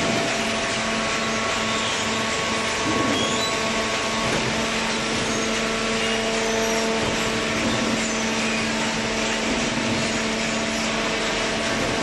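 Horizontal hydraulic baling press running: a steady machine drone with a constant low hum and a higher steady tone over it.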